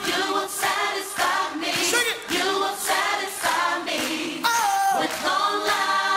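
Background music: a group of voices singing together, choir-like, with little bass under them.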